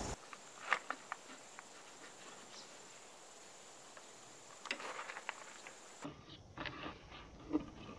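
A few faint clicks and light knocks of small parts being handled, over a faint steady high whine that stops about six seconds in.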